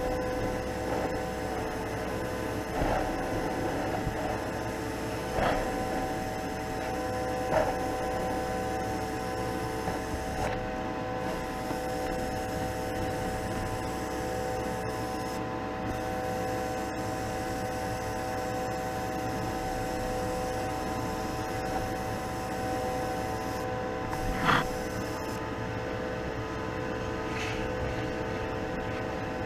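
Spray-booth exhaust fan running with a steady hum. A few brief clicks stand out, the loudest about three-quarters of the way through.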